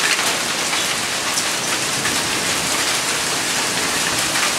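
Heavy hail mixed with rain pelting down without let-up: a loud, even hiss thick with countless small ticking impacts on roofs and leaves.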